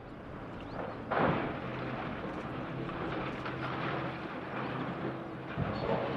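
Bulldozer diesel engine running steadily, with demolition crashes of rubble, a loud one about a second in and another near the end.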